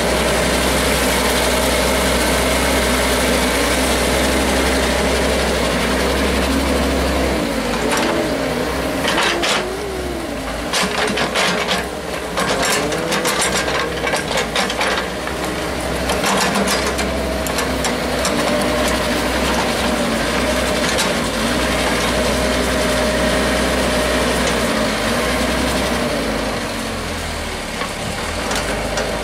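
Daewoo wheeled mini excavator's diesel engine running under hydraulic load, its note dipping and rising as the boom and bucket work. A run of metallic clanks and rattles from the bucket and arm comes in the middle.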